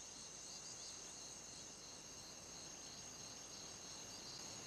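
Faint, steady, high-pitched insect chorus, a continuous trilling like crickets.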